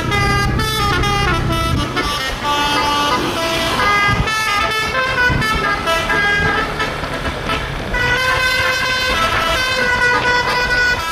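Basuri (telolet) multi-tone bus horn playing a fast tune: a string of short, pitched horn notes stepping up and down.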